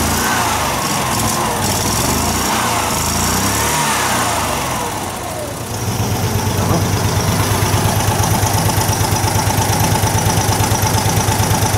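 Mazda R360's small 356 cc air-cooled four-stroke V-twin engine revved three times, its pitch rising and falling. About six seconds in it settles to a steady idle with a fast, even pulse.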